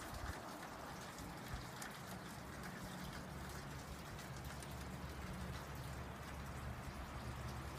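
Faint patter of light rain with scattered drip ticks, over a low steady hum.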